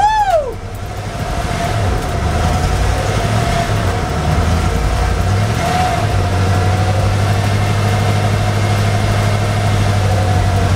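Old Ford pickup's engine running on its first start after sitting for over a decade, a steady rumble that evens out about halfway through. A short whoop of a voice at the very start.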